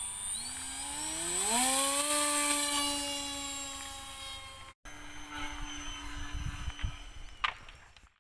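Homemade RC airplane's electric motor and propeller whining up in pitch as the throttle opens at launch, then holding a steady buzz as it climbs. After a cut, the plane is heard again at a steady, quieter pitch, with low irregular rumbles.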